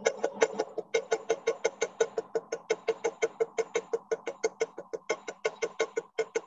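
Small riveting hammer tapping rapidly and evenly on the end of a wire rivet against a metal bench block, about six light taps a second with a faint metallic ring. The blows are spreading the wire's end into a mushroom dome to fix a spaced rivet.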